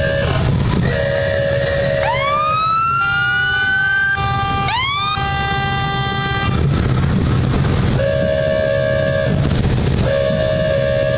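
Emergency vehicles sounding off as they pass: long steady horn blasts, with a siren winding up twice in the middle and holding its pitch for a couple of seconds. Engines run low underneath.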